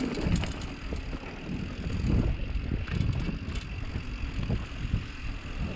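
Mountain bike rolling downhill over a loose, dusty dirt trail: steady tyre rumble with scattered knocks and rattles from the bike, and wind on the microphone.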